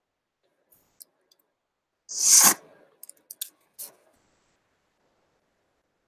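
A few light, sharp clicks, then a short loud rush of noise a little over two seconds in, followed by a handful more clicks.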